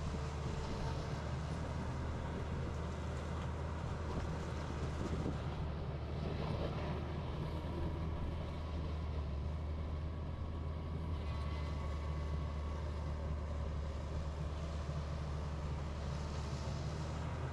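Heavy diesel engine of earthmoving equipment running steadily, a deep, even hum.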